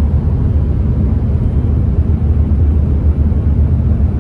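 Steady low rumble of a moving coach bus, its engine and road noise heard from inside the passenger cabin.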